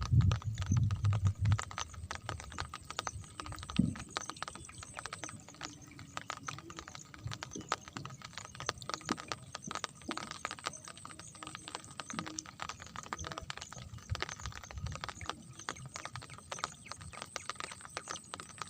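Heavy rain falling, heard as dense, irregular clicks of drops. A low rumble fades out in the first second or two, and there is a single thump about four seconds in.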